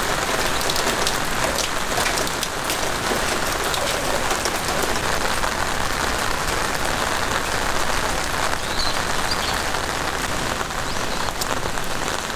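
Steady rain falling on wet pavement, a constant hiss with close drops tapping sharply, most thickly in the first few seconds.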